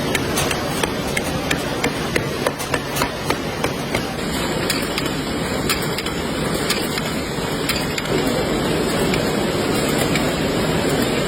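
Match-factory machinery running with a dense mechanical clatter and rapid sharp knocks, about three or four a second at first. The noise changes character about four seconds in.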